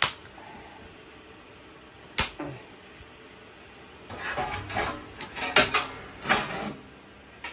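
Metal clicks and clatter at a stainless-steel wood stove: a sharp click, a single knock about two seconds in, then from about four seconds in a run of clattering and rustling as the firebox door is opened and birch bark and kindling are handled.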